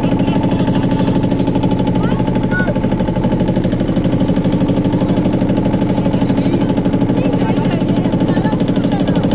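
Wooden river boat's engine running steadily at close range, a fast, even chugging.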